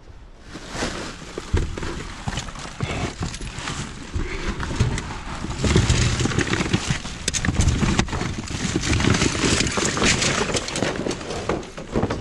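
Things being shifted and scraped around inside a dumpster, with a steady clatter of knocks, rustling and broken glass crunching and clinking underfoot. It grows busier about a second and a half in and heavier again around the middle.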